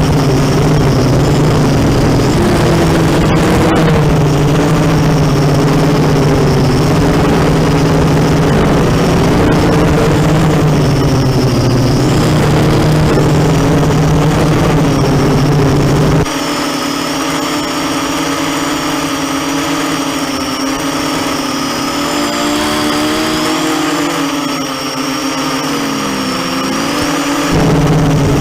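Racing quadcopter's electric motors and propellers whining, the pitch rising and falling as the throttle changes. About sixteen seconds in, the sound switches abruptly to a higher, thinner whine, and it switches back shortly before the end.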